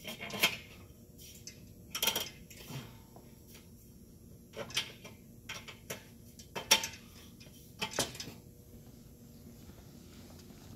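Steel center rail being fitted into the slotted uprights of gondola store shelving: several sharp metal clanks and clicks spread through the first eight seconds, then quiet.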